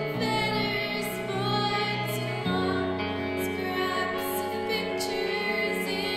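Music with a female singing voice over held low notes; the bass note shifts about two and a half seconds in.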